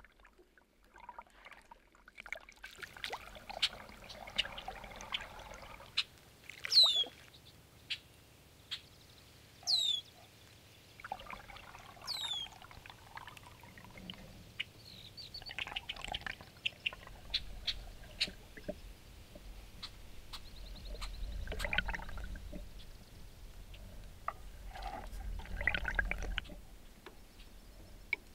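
Canoe paddle strokes in calm water: water swirling and trickling off the blade, with small splashes and clicks. Three high, short chirps sweep downward in pitch, a few seconds apart, in the first half. A low rumble builds through the second half.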